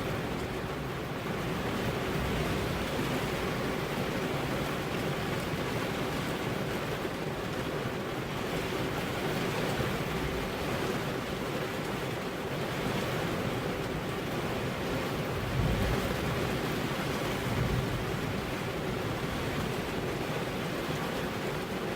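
Steady rain falling on a car's window glass, an even hiss without pauses, with two brief low swells in the second half.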